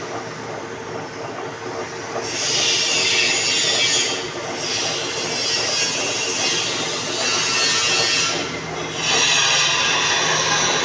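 Manual metal lathe running, with the cutting tool scraping across a metal workpiece under a steady motor hum. The hissing cut comes in about two seconds in, breaks off briefly twice, near four and near eight and a half seconds, and returns each time.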